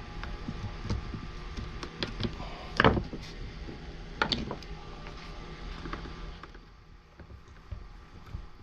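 Scattered light clicks and knocks of a hand screwdriver, small screws and the plastic casing of a mini chainsaw being handled during disassembly, with two louder clatters about three and four seconds in. Quieter near the end.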